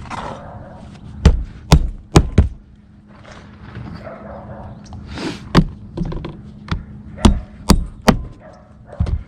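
Sharp, irregular knocks and thuds of work on a tile roof, about ten strikes, some in quick pairs, with pauses in between.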